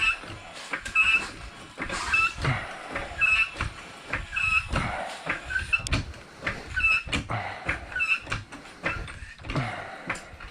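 Car jack being worked to lift the car, with a squeak and a low clunk on each stroke about once a second.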